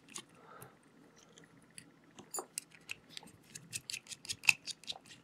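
Small precision screwdriver backing out the tiny screws that hold a circuit board onto a gimbal motor: a run of faint, quick clicks and scrapes of metal on metal, few at first and coming thick and fast from about two seconds in.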